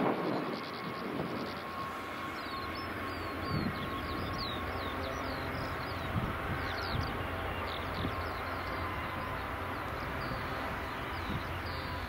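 Jet aircraft engines: a steady drone with a steady whine, louder in the first second and then settling lower. Small birds chirp throughout.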